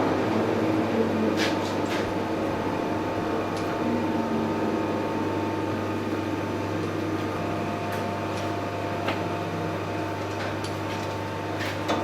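A steady mechanical hum, with a few faint clicks scattered through it.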